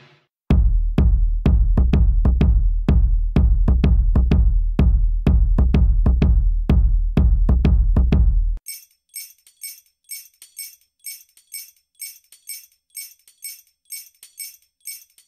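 Isolated drum-machine percussion track: a fast run of loud, deep kick hits that stops suddenly about two-thirds of the way through, leaving only light, high-pitched ticking percussion, several ticks a second.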